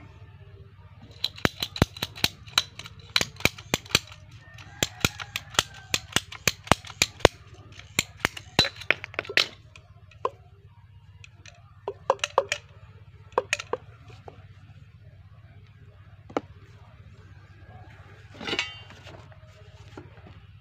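Ratcheting PVC pipe cutter clicking sharply as its handle is squeezed, a couple of clicks a second for about eight seconds, then a few scattered clicks and knocks as the plastic fittings are handled.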